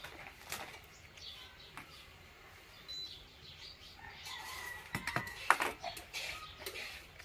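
Steel kitchen utensils, small bowls and a tumbler, clinking and knocking as they are picked up and set down, with the sharpest knocks about five seconds in. Birds chirp faintly in the background.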